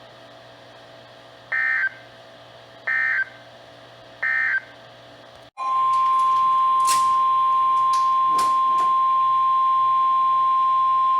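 Three short bursts of Emergency Alert System (SAME) digital header data, about a second and a half apart, then the steady single-pitch 1050 Hz NOAA Weather Radio warning alarm tone, which starts about halfway through and holds. A few crackles of radio static sound during the tone.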